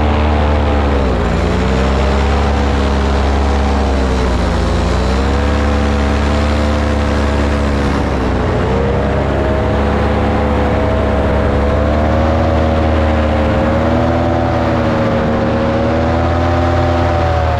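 Paramotor engine and propeller running at flight power, heard close up from the pilot's own machine, with a rush of air. The engine note dips briefly three times, about a second, four and a half and eight and a half seconds in, as the throttle is eased and opened again, then holds steadier with small wavers.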